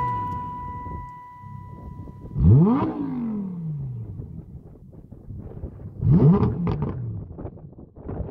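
Lamborghini Huracán Performante's naturally aspirated V10 blipped twice at a standstill, each rev rising sharply and then falling back to a low idle, the first about two and a half seconds in and the second about six seconds in.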